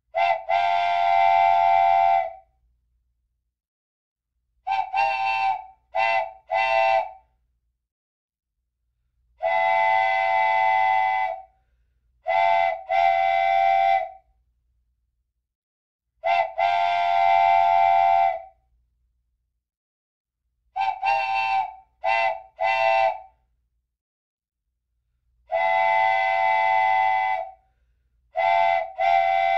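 A loud, steady-pitched whistle sounding in a repeating pattern: one long blast of about two seconds, then a quick group of two or three short blasts. The pattern comes round about every eight seconds, with silence between groups.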